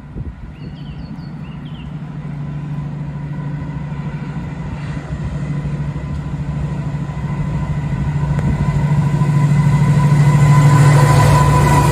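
Freightliner diesel locomotive approaching at the head of a container train, its engine drone swelling steadily as it nears and loudest near the end. A few faint bird chirps in the first couple of seconds.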